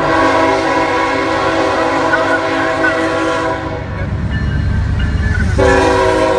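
Norfolk Southern diesel freight locomotive's air horn, several notes at once, blowing a long blast that stops just before four seconds in and starts again near the end. Underneath is the low rumble of the locomotives passing the crossing.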